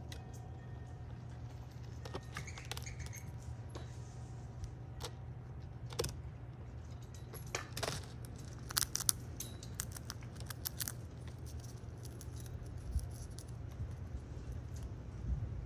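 Squirrel cracking open a peanut shell with its teeth: scattered sharp cracks and crunches, bunched in the middle, over a steady low hum.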